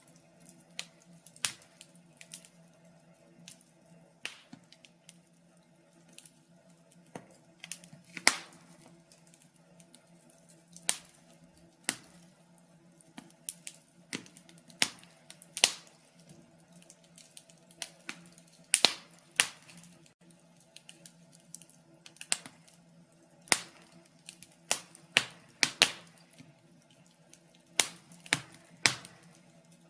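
Wood fire crackling in a fireplace: irregular sharp pops and snaps, one to three a second, some much louder than the rest, over a faint low steady hum.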